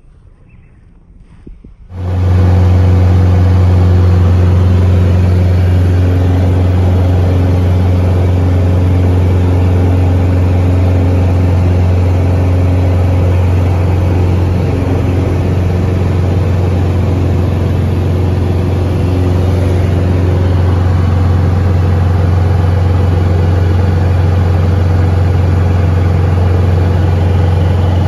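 Cessna 177RG Cardinal's four-cylinder Lycoming engine and propeller droning loud and steady, heard from inside the cabin during the climb just after takeoff. The drone cuts in abruptly about two seconds in.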